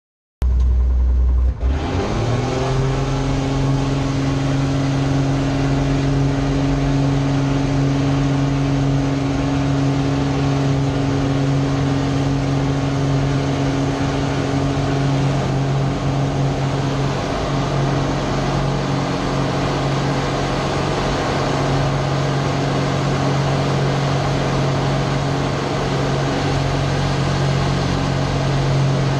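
Slick 540 aerobatic aircraft's six-cylinder Lycoming piston engine heard from inside the cockpit. It rises sharply in pitch in the first couple of seconds as the throttle opens, then runs steadily at high power.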